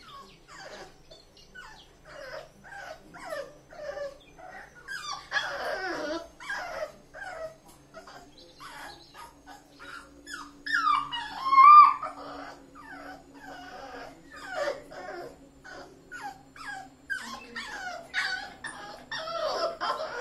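Rottweiler puppy whimpering over and over in short, high, wavering cries, with a louder yelp about twelve seconds in.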